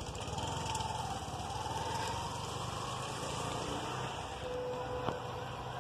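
Engine running with a steady low rumble, plus a single click about five seconds in.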